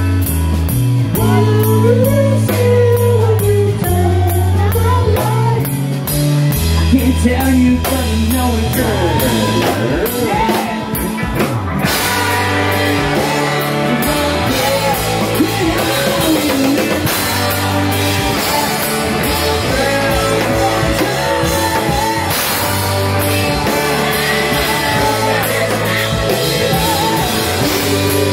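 Live rock band playing in a bar: singing over electric guitar, bass and drums, the sound getting fuller and brighter about twelve seconds in.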